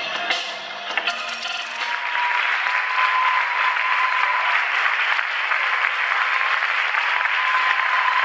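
The tail of a piece of music dies away, and about two seconds in an audience breaks into steady applause that lasts to the end.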